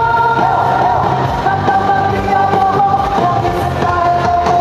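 Loud music with singing: a song with held melodic notes over a steady bass line.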